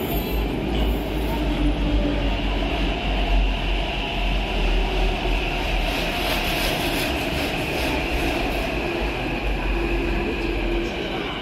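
Electric metro train pulling in alongside the platform and slowing, wheels running on the rails, with a high steady whine from about four seconds in.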